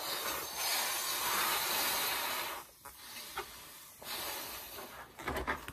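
Two people blowing up balloons by mouth, exhaling hard into them. One long breathy blow runs for about two and a half seconds, then after a short pause come fainter and shorter blows about four seconds in.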